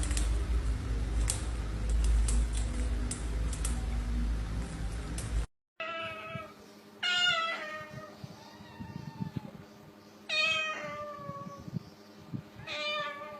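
A domestic cat meowing four times, each meow drawn out and falling in pitch at its end. Before the meows comes a few seconds of loud rumbling noise with some sharp clicks, which stops abruptly.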